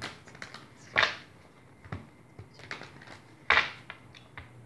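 A deck of tarot cards being shuffled by hand: a few short swishes of the cards, loudest about a second in and about three and a half seconds in, with light ticks between.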